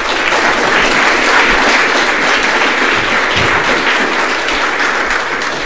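Audience applauding, steady throughout and easing slightly near the end.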